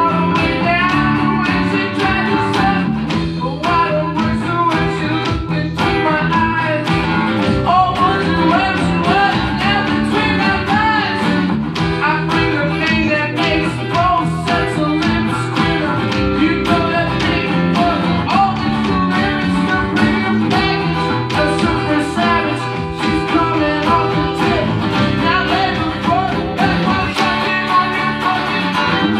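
Live band playing a song: a male singer over a strummed acoustic-electric guitar, with electric guitar backing and a steady beat.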